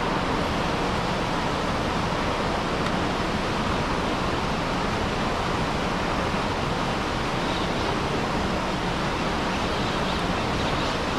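Steady, even rush of stormwater pouring out of drainage culvert pipes after hard rain.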